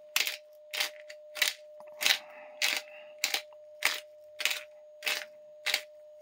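Peppercorn grinder being twisted over a pot, cracking whole peppercorns in a dry crunch about every half second. A faint steady hum runs underneath.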